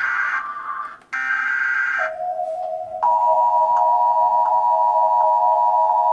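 Electronic alert tones in the style of the Emergency Alert System signal. A harsh buzzing burst cuts off about half a second in and a second one sounds for about a second; then a steady low tone starts and is joined about a second later by a higher steady tone, the two held together.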